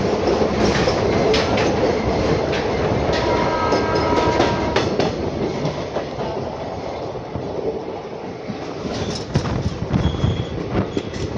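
Passenger train running: steady rumble with wheels clicking over rail joints, heard from the coach doorway. For about two seconds, starting about three seconds in, a high ringing tone sounds over the running noise.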